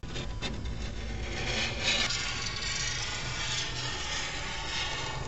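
A hard card squeegee edged with Teflon tape scraping over wet window film on car glass, a rough rubbing sound that is loudest about two seconds in.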